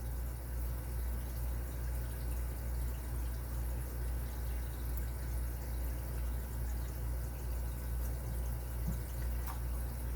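Steady low background hum with a slow pulse, under faint scattered ticks of a lock pick working the pins of a padlock under tension.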